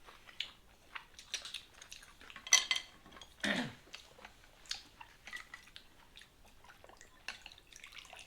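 Tableware clinking and knocking at a meal, with chopsticks, bowls and a glass, in scattered single clicks; the loudest clink comes about two and a half seconds in. Near the end a steady pour of liquor into a small glass begins.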